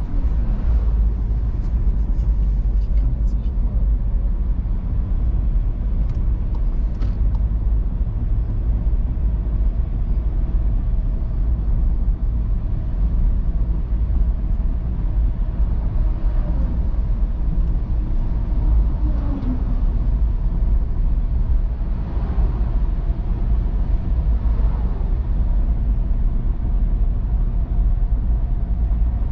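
Car cruising at motorway speed: a steady low rumble of tyres on the road and the engine running, with a few faint rising and falling tones over it.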